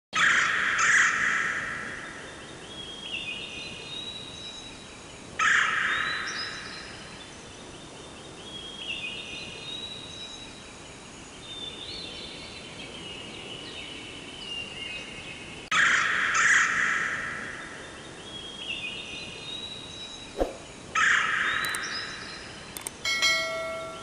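Forest birds calling: loud harsh calls four times, a few seconds apart, over whistled songs made of runs of stepping notes. A sharp click about twenty seconds in and a brief ringing chime near the end.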